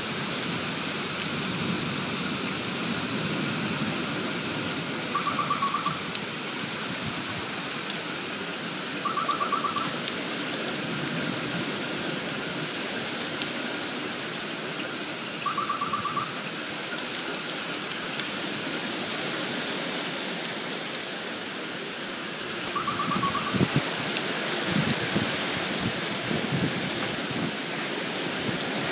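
Heavy wind-driven rain pouring down: a steady hiss of rain on the street, cars and trees. A short, rapid trilled call cuts through it four times, and a low rumble swells in the last few seconds.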